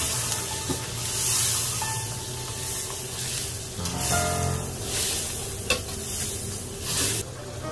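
Food sizzling in a frying pan as it is stirred. The sizzle swells and fades in waves, and a couple of sharp taps from the utensil against the pan are heard.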